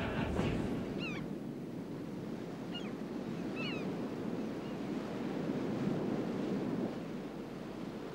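Surf washing steadily onto a sandy beach, with short high bird calls about a second in and again around three to four seconds.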